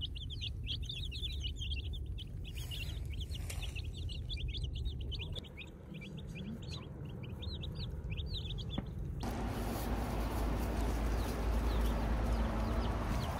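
A flock of young chicks peeping: many quick, high cheeps overlapping for about nine seconds. Then they stop abruptly, and a steady hiss with a low rumble takes over, with a few faint peeps near the end.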